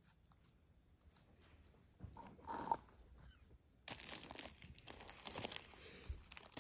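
Plastic packaging crinkling and tearing as it is opened: a short rustle about two seconds in, then a louder stretch of crinkling lasting under two seconds.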